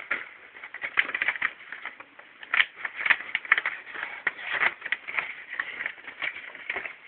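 Contact noise right on the microphone: irregular crackling and scraping clicks, several a second, of something rubbing against it.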